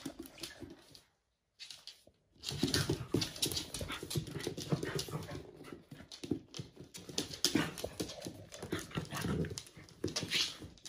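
Two American bully dogs, an adult and a puppy, playing rough: panting and grunting, with claws clicking and scrabbling on a wooden floor. The sound drops out for about a second near the start, then carries on busy and irregular.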